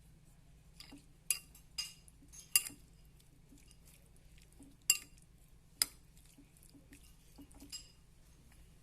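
A utensil clinking against a bowl as seasoned scallops are mixed: a handful of sharp, irregularly spaced clinks with a short ring.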